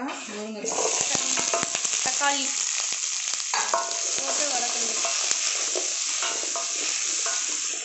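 Chopped okra, drumstick, tomato and shallots sizzling in hot oil in a stainless-steel kadai. The sizzle starts about half a second in as the vegetables hit the oil, and they are stirred with clicks and scrapes of a utensil against the steel.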